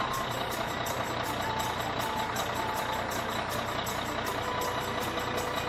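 Bulldozer engine sound effect running steadily.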